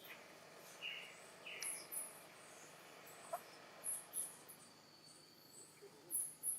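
Faint ambience of short high-pitched chirps repeating irregularly, about one every half second to a second, over a quiet hiss.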